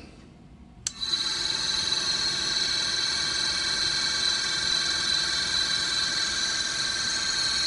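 A drill press's new electric motor, fed from a variable-frequency drive, is switched on with a click about a second in. It then runs at a steady speed with a high, even whine.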